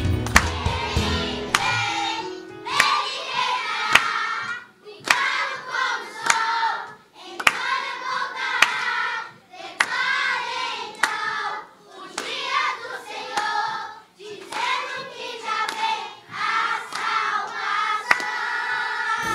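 Children's choir singing in phrases with short pauses, keeping time with hand claps about once a second. A backing track with bass drops out about a second and a half in, leaving the voices and claps on their own.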